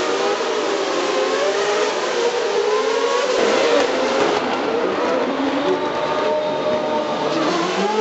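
Several V8 single-seater race cars accelerating, their engine notes overlapping and rising in pitch, with another note climbing near the end.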